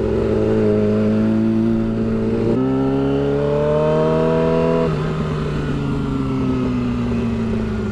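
Yamaha R6 inline-four sport bike engine running through an aftermarket slip-on shorty exhaust while riding. The engine note steps up about two and a half seconds in and climbs steadily as the bike accelerates. It drops at about five seconds and then winds down slowly.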